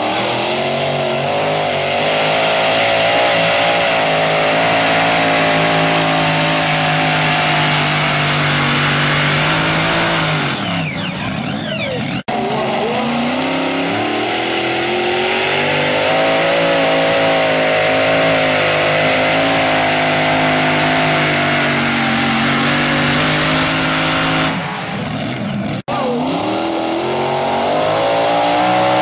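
Supercharged racing engines of mini modified pulling tractors at full throttle under load while pulling the sled, their pitch wavering as they pull. Twice the engine note falls away steeply as it winds down, and the sound cuts to a different tractor running hard.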